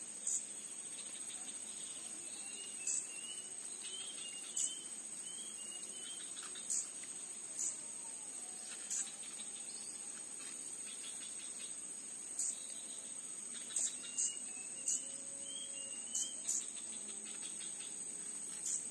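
Insects, crickets or similar, keep up a steady high-pitched drone, with short louder chirps every second or two. Faint brief bird calls come in twice.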